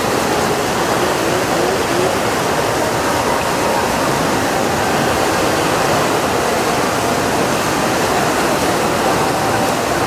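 Churning white water rushing steadily down the artificial rapids of a theme-park raft ride.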